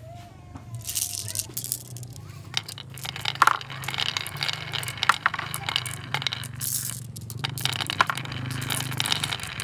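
Glass marbles rolling down a wooden wavy-groove marble run, a dense, irregular clatter of clicks as they knock against the wood and each other and pile up behind a toy car blocking the track. The clatter starts about a second in and briefly thins out near seven seconds.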